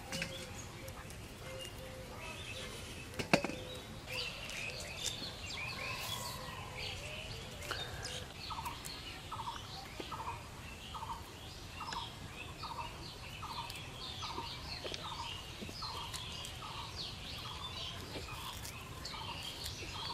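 Many birds chirping and calling together in a steady chorus, with one bird repeating a short, evenly spaced note about once or twice a second through the second half. A single sharp knock about three seconds in.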